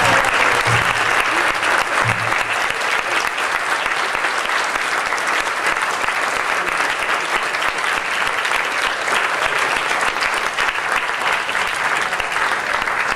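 Audience applauding steadily in a lecture hall at the end of a talk, slowly easing off.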